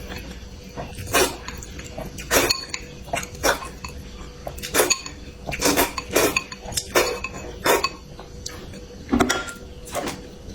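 Eating utensils clinking against a dish: about a dozen sharp, separate clinks, roughly one a second.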